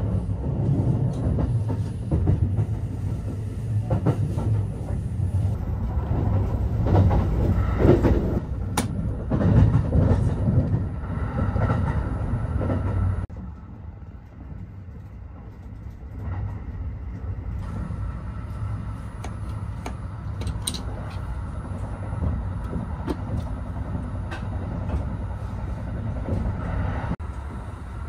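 Interior running noise of a Kintetsu Hinotori express train: a steady low rumble with a few light clicks. About halfway through it drops suddenly to a quieter level.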